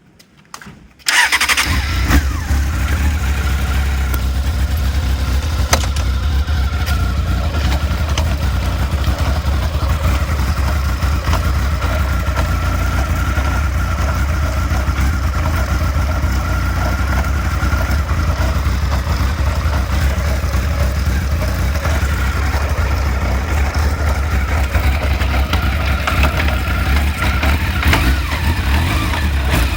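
An engine starts about a second in and then runs steadily at idle.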